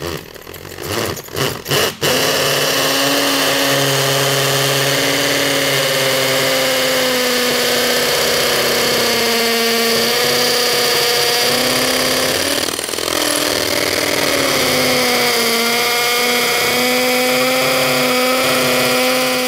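HART cordless hammer drill boring a 5/16-inch masonry bit into fully cured concrete. It starts in a few short bursts, then runs steadily with a wavering whine, easing briefly about two-thirds of the way through.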